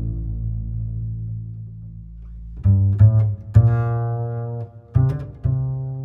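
Background music of low, plucked string-bass notes: one long note fading away over the first two and a half seconds, then a quicker run of notes.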